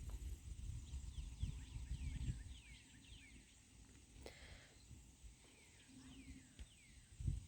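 Birds chirping in short, repeated falling calls over a faint low rumble, with a dull thump near the end.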